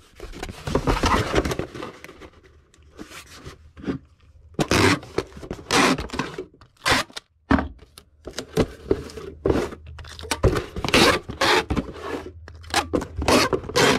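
Small cardboard shipping box being fetched, folded into shape and handled: irregular scraping, creasing and crinkling of cardboard.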